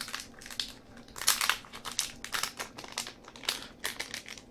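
Small packet's wrapping crinkling in a run of irregular crackles as it is handled and turned over in the hands.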